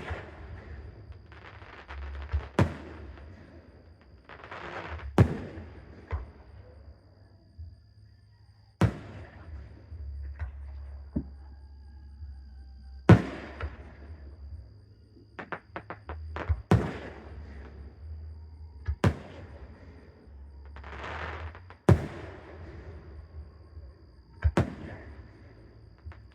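Aerial fireworks bursting: a sharp bang every two to three seconds, each trailed by about a second of crackling hiss, with a quick run of small pops about fifteen seconds in.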